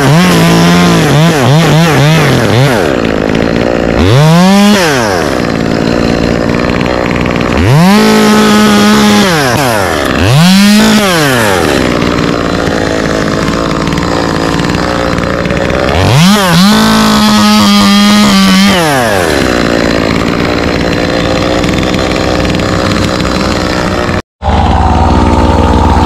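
Two-stroke chainsaw revved repeatedly, its pitch climbing to full throttle and falling back to idle about five times, wavering low and uneven in the first few seconds. Near the end the sound cuts off abruptly and gives way to a steadier, lower engine drone.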